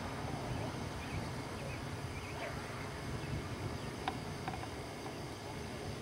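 Open-air ambience at a youth soccer field: a steady low rumble with faint distant calls, and a single sharp tap about four seconds in.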